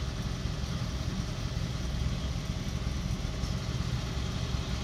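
The 409 V8 of a 1963 Chevrolet Impala SS idling steadily: a continuous low rumble.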